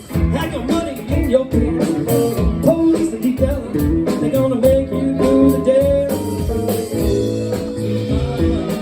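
Live band playing a blues number, electric guitar to the fore with bending notes over a steady drum beat.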